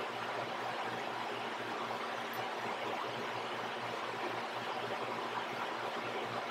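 Steady, even hiss of room tone with a faint low hum underneath; no distinct event.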